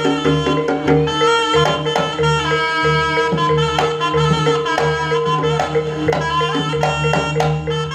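Javanese jaranan ensemble music: a reed-pipe melody over drums and steady, sustained gong tones, played without pause.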